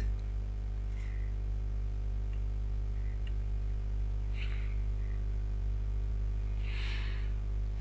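Steady low electrical hum and buzz in the recording, with a brief soft hiss near the end.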